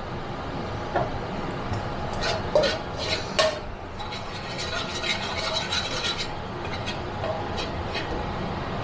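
Metal spatula scraping and tapping against a carbon-steel wok while stirring and breaking up sugar melting into caramel, with a few sharp clicks in the first half over a steady hiss.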